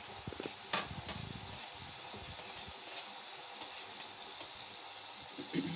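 Kitchen tap running, a thin stream of water splashing into a plastic bowl of water full of purslane leaves to rinse them, with one light click about a second in.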